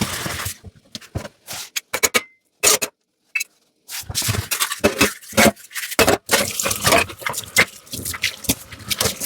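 Hand dishwashing: a sponge scrubbing dishes in short scraping strokes, with dishes clinking and knocking against each other. There is a brief dead silence about two and a half seconds in, and the scrubbing is busier after it.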